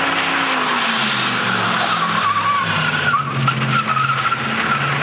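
Full-size Ford Bronco drifting, its engine running hard under load. From about two seconds in, its tyres squeal with a wavering pitch.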